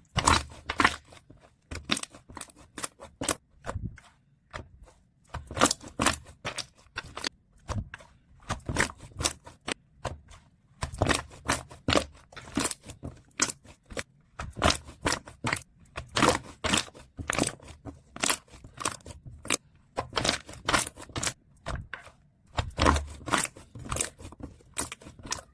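Hands squishing and stretching foam slime, making rapid clusters of sharp crackling and popping clicks as air pockets burst, with brief pauses between handfuls.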